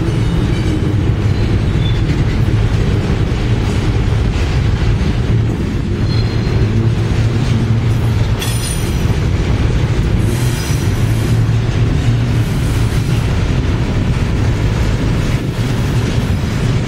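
Loaded freight cars of a Norfolk Southern train rolling past: a steady heavy rumble of steel wheels on rail. Brief high wheel squeals rise now and then over it.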